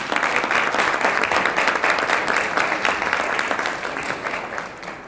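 Audience applauding in a hall, loudest in the first few seconds and fading out near the end.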